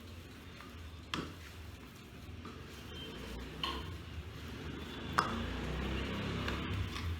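Kitchen dishes and utensils handled: three separate light knocks and clinks, the sharpest about five seconds in, over a low steady hum.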